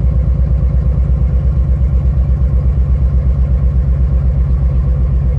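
2006 Nissan 350Z's 3.5-litre V6 idling with an even, pulsing beat. It is running on a misfire, with cylinders 4 and 5 not contributing.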